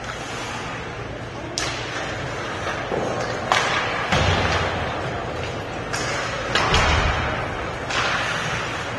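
Ice hockey play: about six sharp knocks and cracks of puck, sticks and players hitting the rink boards, with heavier thuds about four seconds in and near seven seconds, over a steady hiss of rink noise.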